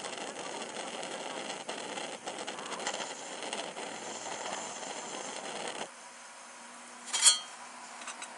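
A steady hiss cuts off abruptly about six seconds in, followed by a single sharp metallic clink.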